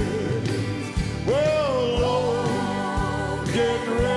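Live gospel band music between sung lines, with a low beat about once a second and a long held note with vibrato starting about a second in.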